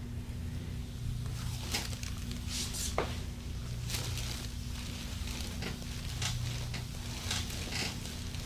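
Soft, irregular rubbing and rustling of hands working over a patient's body and clothing during a massage, over a steady low hum.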